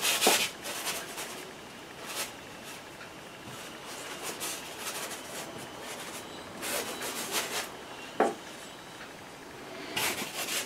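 Wide flat bristle brush scrubbing paint onto a stretched canvas: scratchy rubbing strokes in several short runs with pauses between.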